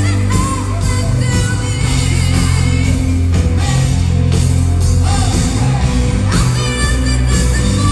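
Rock band playing live, with electric guitars, bass, drums and a woman singing lead, heard from within the crowd in a concert hall.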